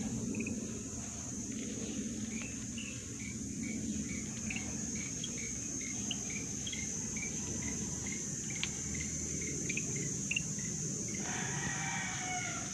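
Outdoor rural ambience: a steady high insect drone with a bird chirping over and over, about two to three short chirps a second. Near the end a longer call with several wavering pitches comes in.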